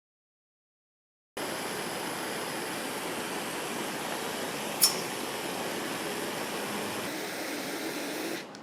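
After about a second and a half of silence, a jeweller's gas soldering torch flame hissing steadily, with one sharp click about halfway through. The hiss drops away near the end.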